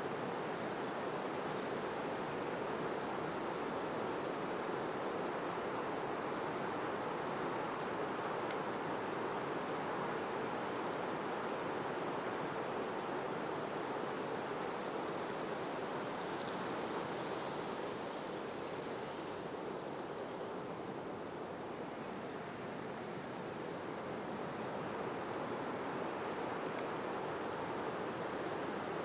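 Steady rushing outdoor ambience from wind or running water, with a few brief, faint high bird chirps about four seconds in and again near the end.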